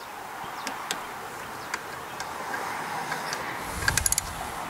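Click-type torque wrench working on the cylinder head bolts of a Briggs & Stratton 190cc OHV engine: a few single ticks, then a quick run of ratchet clicks with a low thud about four seconds in.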